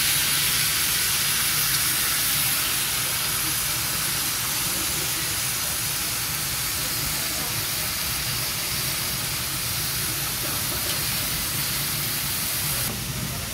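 Cabbage and meat sizzling in a hot iron pan as they are stir-fried, a steady frying hiss with rising steam.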